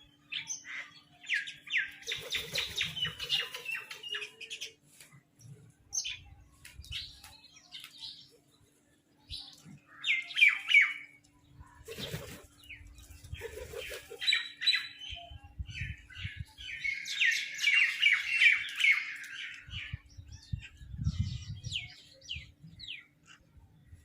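Crows cawing in several bursts of quick, harsh, repeated calls, loudest about halfway through and again in a long run near the end.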